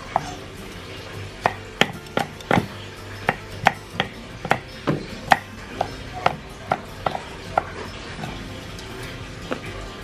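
Large kitchen knife chopping red chilli peppers on a thick round wooden chopping board: a run of sharp, irregular knocks of the blade on the wood, starting about a second and a half in and stopping about three-quarters of the way through.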